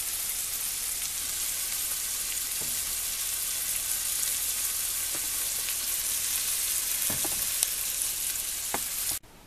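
Diced carrots, onions and raisins sizzling steadily in hot oil in a frying pan, with a few faint crackles, stopping abruptly near the end.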